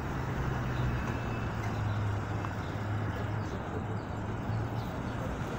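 Steady city street noise of road traffic, with a low hum running underneath.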